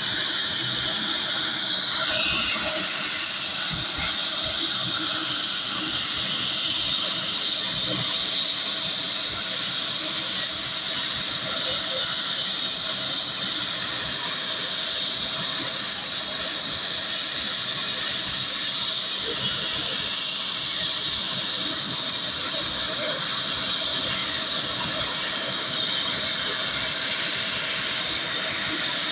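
Helicopter engine and rotor running on the ground: a steady, loud, hissing rush with no break.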